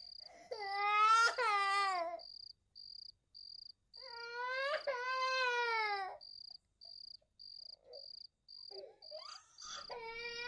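Crickets chirping in a steady rhythm, about two chirps a second, under two long wailing cries, like a person crying, each about two seconds and falling in pitch at the end, with shorter cries starting again near the end.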